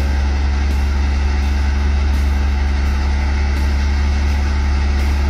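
Diesel engines of crawler bulldozers running steadily as they push earth and gravel: an even, continuous low drone.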